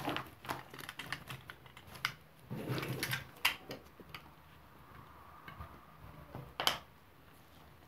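Irregular small clicks and scrapes of close handwork as a charging cable is cut open along its sides to expose a broken wire inside.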